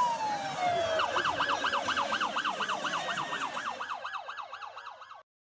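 Emergency vehicle siren: a falling wail for about a second, then a fast yelp sweeping up and down about four to five times a second, fading and cutting off just before the end.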